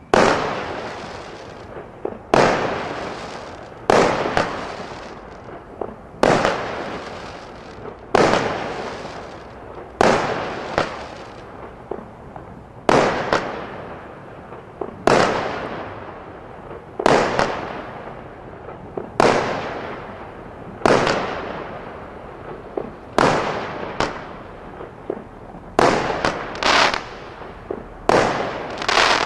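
Fine and Dandy 18-shot firework barrage firing its shots in turn. Each is a sharp bang that dies away over a second or so, about one every two seconds, coming a little quicker near the end.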